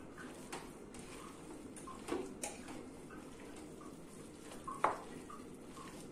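A wooden spoon and a hand stirring chicken pieces with onion and herbs in a slow cooker's ceramic pot. Soft scraping and squelching with a few light knocks of the spoon against the pot; the sharpest knock comes about five seconds in.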